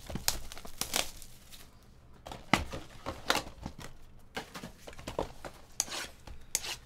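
Hands handling and opening a 2017 Topps Finest trading-card box: irregular crinkling, tearing and tapping of cardboard and wrapper, with a quieter stretch about two seconds in.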